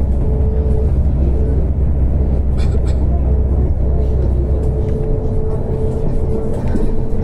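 Trolleybus riding, heard from inside the passenger cabin: a loud low rumble from the moving vehicle with a steady electric motor whine that comes and goes. The rumble eases about five seconds in.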